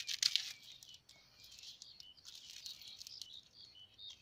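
Small foil packet crinkling and rustling in the hands as it is opened, loudest for the first half second, then quieter handling rustle.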